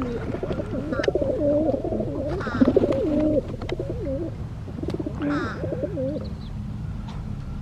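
Doves cooing over and over in warbling phrases, with a few brief higher chirps from other birds.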